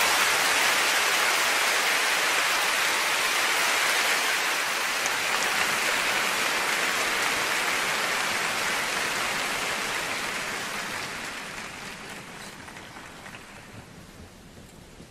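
Arena audience applauding, a dense, even clatter of many hands that holds steady, then dies down gradually over the last few seconds.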